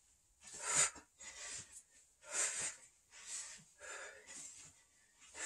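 A man breathing hard through a core exercise, with short, forceful breaths about once a second.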